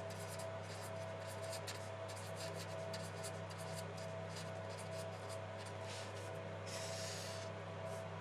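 A pen writing out a formula in a run of short scratchy strokes, with one longer rubbing stroke about seven seconds in, over a steady electrical hum.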